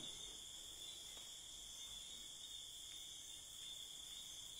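Faint steady chorus of crickets, with a soft knock or two in the first second or so.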